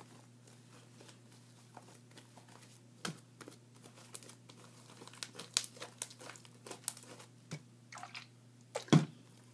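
Sticky PVA-glue slime being kneaded and pulled by hand, not yet fully activated: scattered small crackling clicks that start about three seconds in, with a single louder thump near the end.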